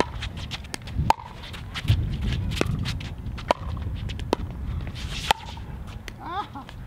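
Pickleball rally: paddles striking a plastic pickleball, five sharp pops about a second apart as the ball goes back and forth.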